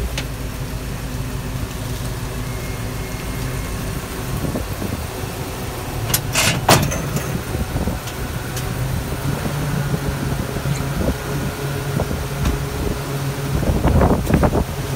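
Ford F-350 pickup's engine running steadily at low speed as the truck creeps forward onto the snowplow mount. A single sharp knock comes about six and a half seconds in, and a short cluster of knocks comes near the end.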